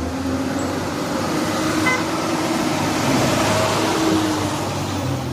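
A motor vehicle running, heard as a steady rushing noise over a low hum, with a short horn-like tone about four seconds in.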